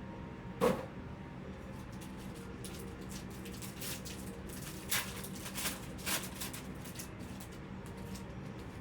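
Trading card box and packs being handled: a sharp knock about a second in, then a run of short clicks and rustles a few seconds later, over a steady low hum.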